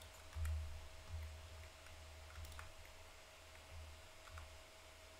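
Faint, scattered clicks of a computer mouse and keyboard, with a few dull low thumps, over a faint steady hum.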